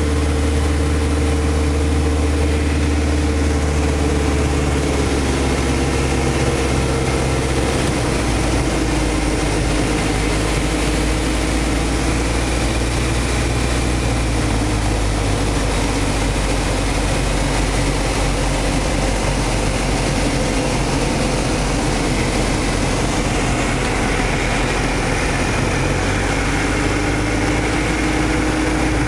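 Light aircraft's engine and propeller droning steadily, heard from inside the cockpit. The engine note dips a few seconds in and rises again near the end as power is changed on the approach to landing.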